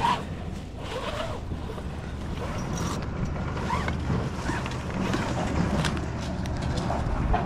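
Wind buffeting the microphone high up in a palm tree, a steady low rumble.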